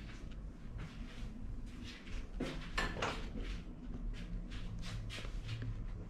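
Small knocks and rustles from a handheld camera being moved around a small tiled bathroom, about three a second over a low rumble, with one sharper clack about two and a half seconds in.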